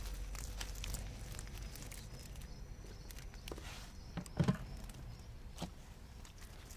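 Footsteps and rustling on a grassy, leaf-strewn bank while a wet mesh keep net holding fish is handled, with scattered small clicks and one dull knock about four and a half seconds in.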